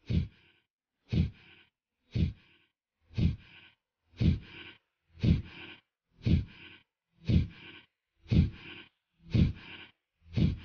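Kapalbhati pranayama breathing: a man's forceful exhalations through the nose, one sharp puff about every second, each with a short, softer tail. About eleven strokes in an even rhythm.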